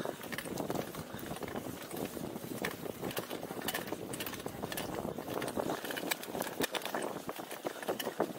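Mountain bike riding over a rough dirt track: steady tyre noise on dirt with a constant clatter of small rattles and knocks from the bike over the bumps, busier near the end.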